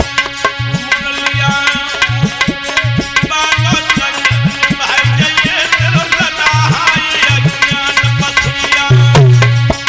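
Instrumental devotional music: an Indian hand drum plays a quick, steady rhythm with bass strokes that bend in pitch, under sustained melody notes.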